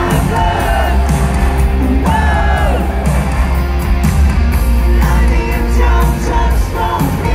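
Live rock band playing loud through a stadium PA: a lead vocal over electric guitars and heavy bass, with one long sung note sliding down about two seconds in.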